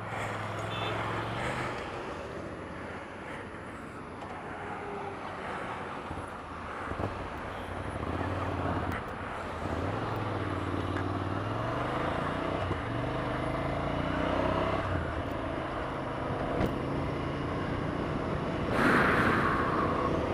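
Motorcycle engine pulling away and accelerating through the gears, its pitch rising in steps several times, over steady wind and road noise.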